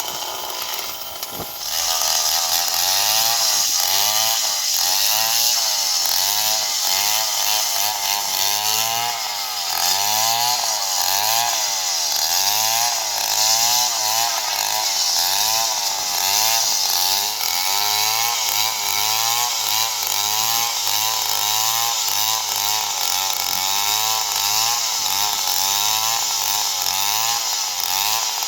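STIHL chainsaw running at high throttle while cutting palm wood, the engine note wavering up and down a couple of times a second as the chain bites into the trunk. It gets louder about a second and a half in.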